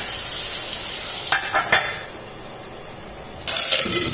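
Ivy gourd and tomato sizzling in oil in a cast-iron pan, with a few sharp metal clanks as a stainless steel lid is set on the pan about a second and a half in. After that the sizzle turns quieter. A short, louder rush of noise comes near the end.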